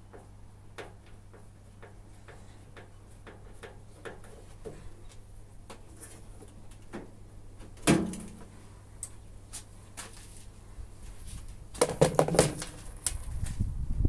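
Plastic and metal parts of an old Indesit washing machine being worked with a screwdriver: light clicks about twice a second, a single loud knock about eight seconds in, and a burst of clattering knocks near the end as the detergent dispenser housing is pulled out.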